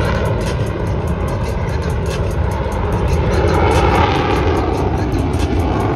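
F-16 fighter jet's engine noise as the aircraft flies overhead: loud and steady, with a faint whine in it, swelling a little about four seconds in.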